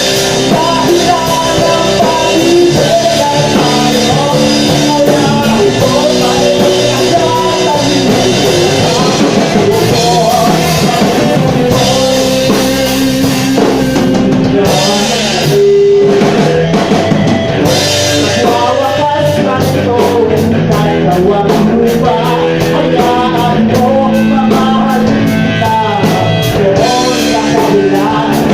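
A live rock band playing: a drum kit, guitars and a singing voice.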